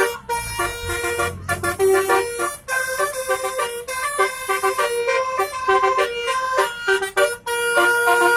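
Bus 'telolet' musical horn: a multi-tone air horn playing a quick tune of short notes, repeated over and over. A low rumble is under it in the first couple of seconds.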